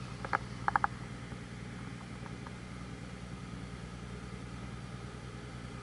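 A steady low engine hum. A few short, high chirps come about a second in.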